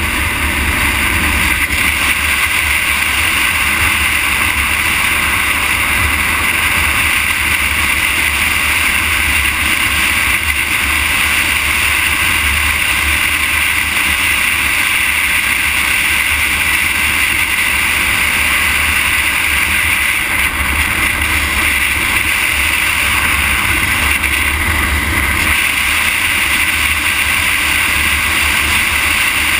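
Steady rush of wind and tyre-on-asphalt noise on a moving camera's microphone, with a constant low rumble underneath.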